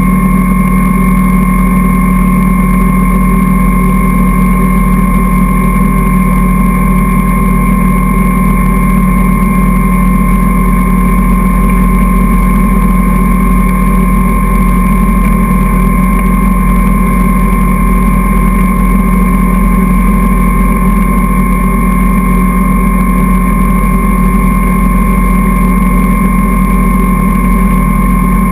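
Towing motorboat's engine running steadily at speed, a constant drone with a thin steady whine above it, over the rush of water.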